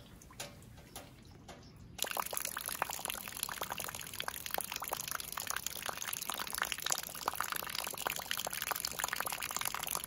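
Rain falling into a shallow puddle on bare dirt: a dense, steady patter of drops splashing into the water, coming in suddenly about two seconds in after only a few scattered drips.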